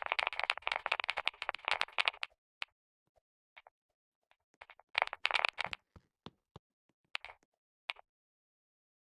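Keyboard keys being typed on rapidly: a fast run of clacks for about two seconds, a few scattered key presses, another short quick run about five seconds in, then single taps spaced apart.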